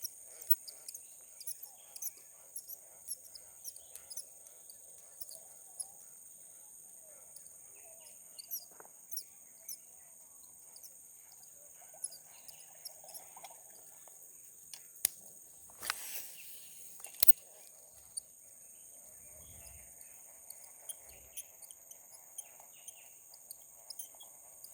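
Steady high-pitched insect drone with scattered small chirps, and a few sharp clicks about two-thirds of the way through.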